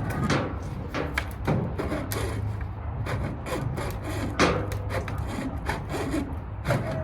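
Hand hacksaw cutting through a 3-inch drain pipe, rasping back-and-forth strokes at roughly two a second.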